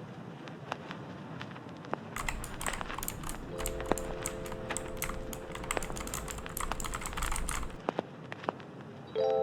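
Typing on an Aula F3287 mechanical keyboard: a few scattered keystrokes, then a fast, steady run of clacking keys for about five seconds, thinning back to a few keystrokes near the end.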